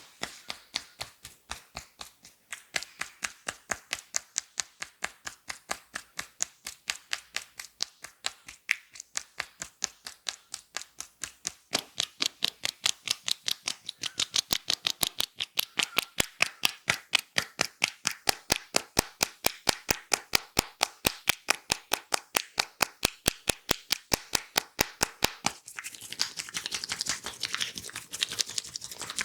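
Hands striking rhythmically in a percussive head-and-neck massage: sharp, even slaps or claps about five to six a second that stop near the end. A softer rustling rub follows.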